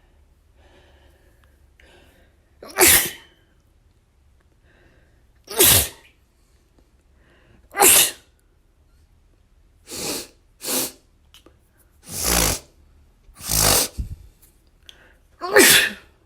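A person sneezing repeatedly: eight separate sneezes about two to three seconds apart, the two around ten seconds in shorter and quieter than the rest.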